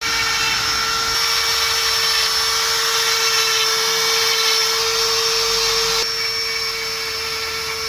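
A steady, high-pitched machine whine that holds one constant pitch throughout, like a small motor or power tool running at constant speed.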